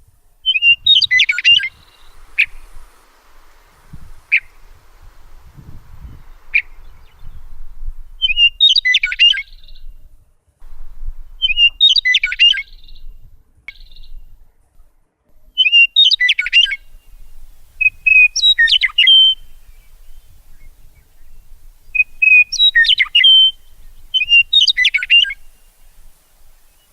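A bird singing seven short, jumbled chirping phrases a few seconds apart, with single sharp chips between the first few.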